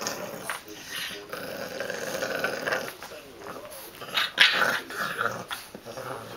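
Bulldog puppy growling in play in short bursts as it jumps at a hand, with a louder burst about four and a half seconds in.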